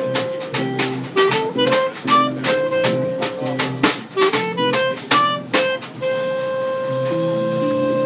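Small jazz group of clarinet, acoustic jazz guitar, double bass and drum kit playing a cool-jazz tune. The clarinet plays a quick melody over regular drum strokes. About six seconds in, the drumming stops and the clarinet holds one long note while lower notes move underneath.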